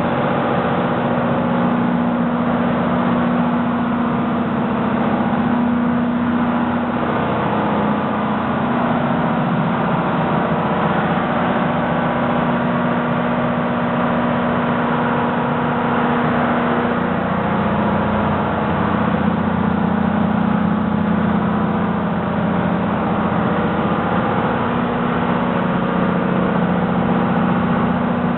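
Steady drone of machinery running in a ship's engine room: a constant low hum whose pitch shifts slightly now and then.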